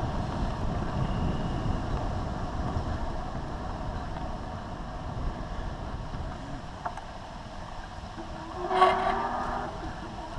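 Electric bicycle riding on an asphalt path, heard from a handlebar-mounted camera: a steady low rumble of wind and tyre noise. About nine seconds in, a brief loud whistle-like squeal.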